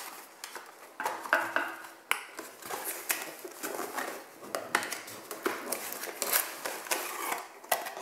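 Cardboard packaging being handled and pulled out of a box: scraping and rustling of card with a run of light knocks and clicks, a few sharper taps along the way.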